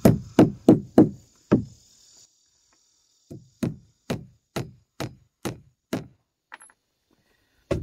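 Hammer driving nails into the lumber of a roof truss: a quick run of blows about three a second, a pause of about a second and a half, then a second run of lighter, steady blows about two a second, and one last blow near the end.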